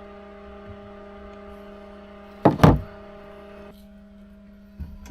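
Steady electrical hum, with a brief loud knock and clatter about two and a half seconds in and a smaller knock near the end, as of work on a truck's steering column and dash parts.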